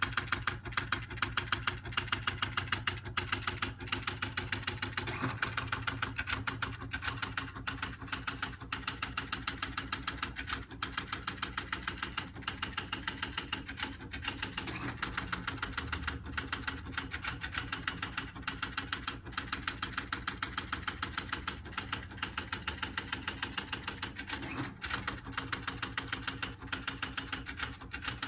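Siemens T1000 teleprinter printing a telex message sent from punched tape: a fast, even clatter of print strikes over a steady machine hum.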